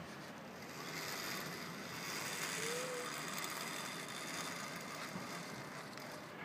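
Zip-line trolley pulleys rolling along a steel cable: a hissing whir that builds about a second in and slowly fades.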